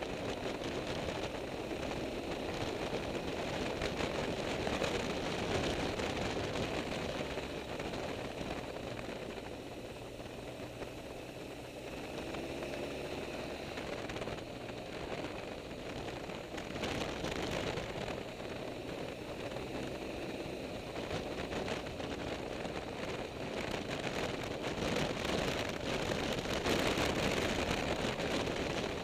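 Steady wind rush on the microphone of a BMW R1200GS motorcycle riding at speed, with the bike's flat-twin engine running underneath.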